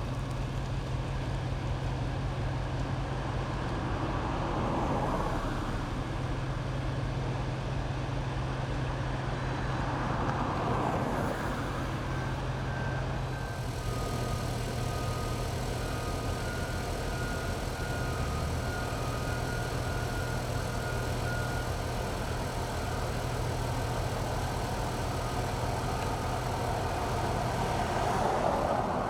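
Steady freeway traffic noise over a constant low engine hum, with vehicles swelling past a few times. Faint short high beeps come and go in the middle.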